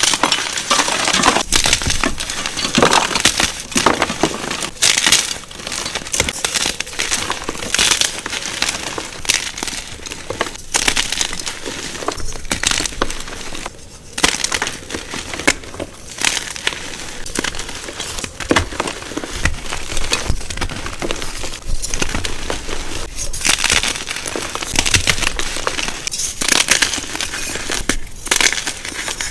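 Blocks of gym chalk being crushed and crumbled, a dense run of crisp crunches and crackles, with a brief lull about halfway through.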